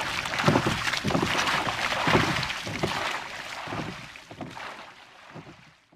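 A rowing boat on the water: repeated splashing strokes over rushing water, fading out over the last few seconds.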